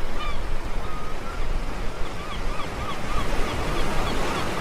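Ocean surf rushing steadily, with birds calling in short, repeated chirps over it.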